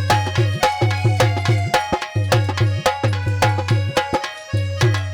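Instrumental interlude of a devotional aarti song: a fast tabla-style hand-drum rhythm, about four or five strokes a second, with bass strokes that slide down in pitch, over held melody notes. The drumming breaks off briefly near the end.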